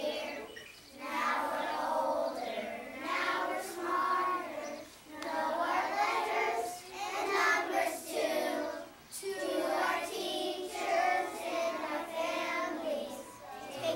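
A group of kindergarten children singing a song together in unison, phrase after phrase with short breaks between.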